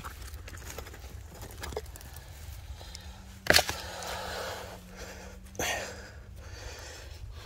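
Digging among loose stones and soil: two sharp knocks about two seconds apart, the first much louder, over a steady low rumble.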